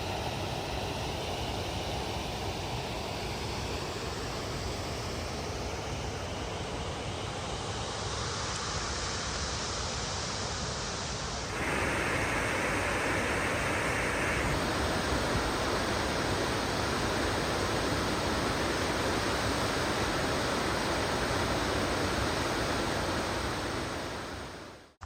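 Running Eagle Falls, a waterfall, pouring with a steady rushing noise. It gets louder and brighter about halfway through, then fades out at the end.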